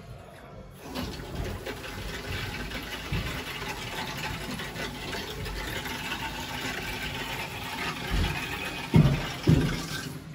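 Mains water hissing steadily through the cold inlet valve and copper pipework as the cold side of an unvented hot-water cylinder system fills under mains pressure. The hiss starts about a second in, as the ball valve is opened. Two dull knocks come near the end.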